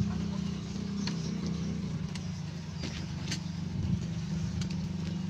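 Motorcycle engine running steadily at low speed, with a few light clicks over it.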